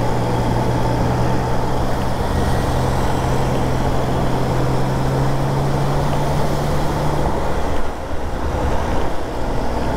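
Triumph Trident 660's inline three-cylinder engine running steadily while riding in traffic, with surrounding traffic noise. Its steady note breaks off about seven seconds in, with a brief dip in loudness just after.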